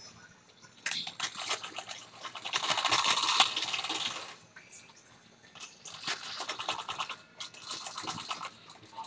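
Domestic sewing machine stitching through quilted fabric and a zip strip, with a fast, even run of needle strokes. It runs in two bursts: from about a second in to about four seconds, then again from about six seconds to near the end.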